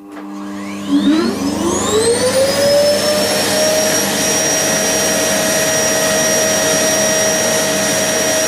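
Vacuum cleaner switched on about a second in, its motor whine rising over a second or two and then running steadily with a loud rush of air.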